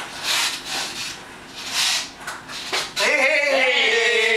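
A few scuffing, rubbing noises, then about three seconds in a voice breaks into loud, drawn-out singing.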